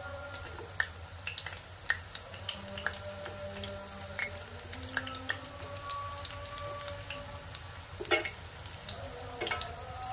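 Balls of rice-and-urad-dal batter deep-frying in oil in a stainless steel pan, crackling and popping steadily, with a few louder clicks as a spoon turns them against the pan.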